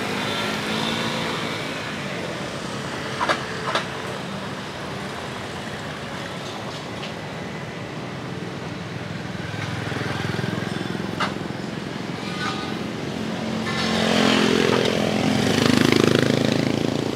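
Motorbike and scooter traffic passing on a city street, with one bike going by close and louder near the end, its engine rising in pitch. Two short sharp sounds stand out just over three seconds in.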